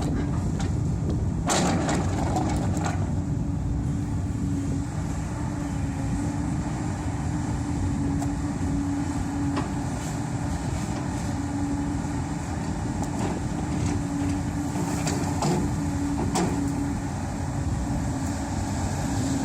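Cat 320D excavator's diesel engine running steadily under load, with a steady whine over it and a few short knocks, one about a second and a half in and more near the end.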